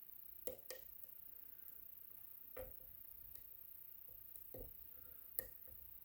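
Faint, scattered clicks and taps of a lock pick working the sliders inside an IKON WSW sidebar lock cylinder, about five light clicks spread unevenly over a few seconds.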